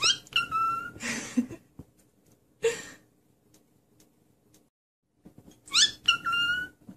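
Cockatiel whistling twice, once at the start and again near the end; each call is a quick rising chirp followed by a short held whistle note. A few brief rustling noises come between the calls.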